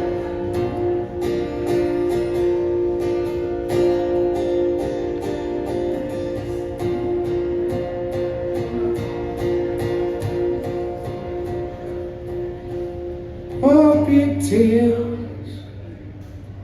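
Acoustic guitar strummed in a steady rhythm through a song's intro, with a voice starting to sing near the end.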